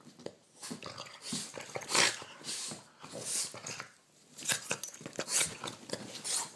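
A Boston terrier play-biting at a hand, making short noisy bursts and snaps at irregular intervals.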